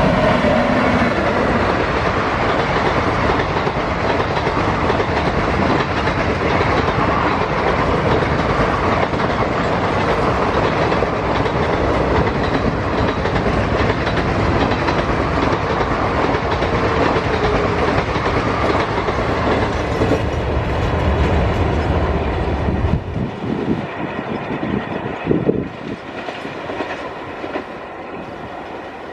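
Express passenger train of ICF coaches crossing an iron bridge at speed: a loud, steady rumble with wheel clatter. The noise drops off sharply about 23 seconds in, with a few last thumps, and fades away.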